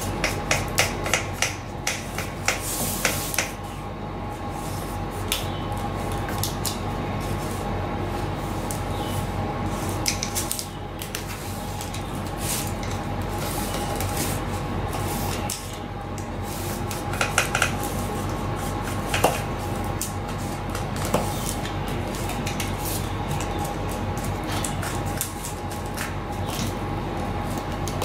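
Corrugated plastic (Coroplast) sheet being cut and handled: sharp clicks and scrapes over a steady hum, the clicks coming thickest in the first few seconds.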